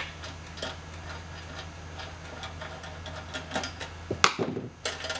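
Small metallic clicks and ticks as the thumbscrews are worked loose and a sheet-metal blanking plate is taken off an HP LaserJet's lower EIO slot, with a louder metal clack about four seconds in.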